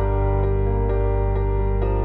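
Background music: a gentle instrumental piece with a held low bass note and a new note struck about twice a second.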